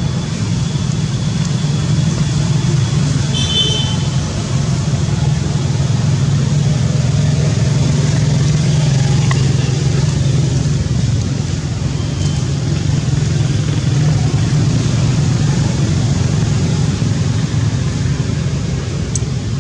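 A steady low rumble throughout, with a few faint high chirps about three to four seconds in.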